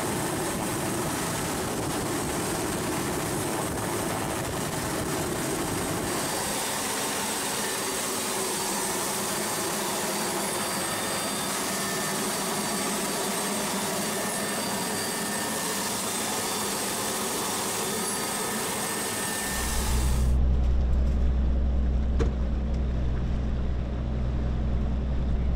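Steady cabin noise of a Super Puma helicopter: a broad rush with high whining turbine tones. About 20 s in it cuts to the low, steady rumble of a coast guard patrol boat's engines.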